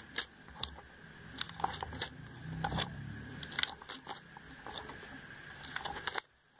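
Glossy paper catalogue pages being handled and turned, a string of light clicks and paper rustles. The sound drops out abruptly near the end.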